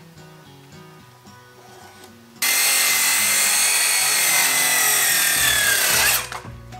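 Circular saw cutting through pressure-treated deck boards. It starts suddenly about two and a half seconds in, runs for about four seconds with its whine dropping slightly in pitch, then stops. Soft background music plays under it.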